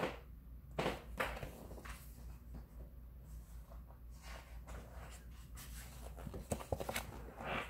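Quiet rustling and a few soft taps as a paperback picture book is handled and a page is turned, with a cluster of these sounds near the end.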